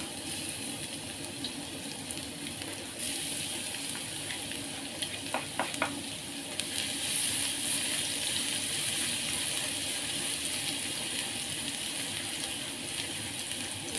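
Garlic sizzling in hot cooking oil in a pan, a steady hiss that grows louder about three seconds in and again around the middle. A utensil clicks against the pan three times just before the second rise.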